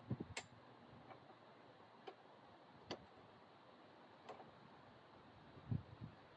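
Near silence broken by a handful of scattered light clicks and knocks, from parts being handled while the lawn mower is unpacked and assembled.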